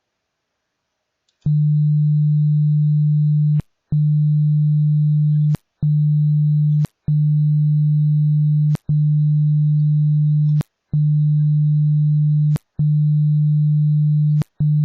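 Hearing-test sine tone: a loud, steady, low-pitched tone that starts about a second and a half in and plays in stretches of about two seconds. Each stretch is separated by a short break, with a click at each break.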